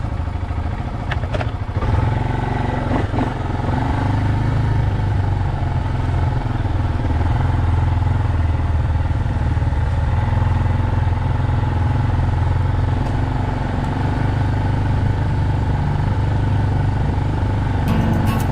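ATV (four-wheeler) engine running steadily with a low rumble, getting louder about two seconds in.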